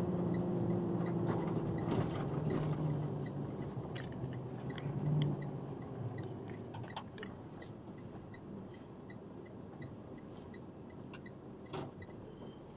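Box truck running down the road, its engine and road noise fading as it slows, with a steady ticking of about two ticks a second, like a turn signal, starting a couple of seconds in. A few scattered clicks and knocks from the cab.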